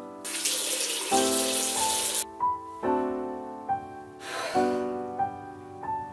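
Water tap running at a bathroom sink for about two seconds, starting just after the beginning, with a shorter burst of the same rushing noise about four seconds in. Soft lofi piano background music plays throughout.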